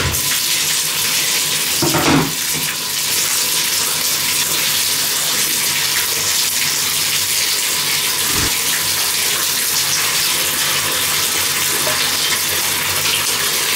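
Bathtub filling from the tap: water pouring from the spout into the tub in a steady rush. A short knock about two seconds in and a low thump later stand out briefly over it.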